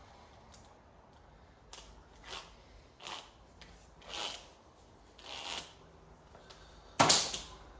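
Heavy scrap wire being handled: five short scraping, rustling sounds about a second apart, then a louder clatter about seven seconds in.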